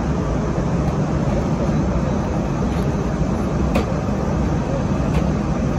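Steady airliner cabin noise in flight: engine and airflow noise, heaviest in the low range, with a few faint clicks.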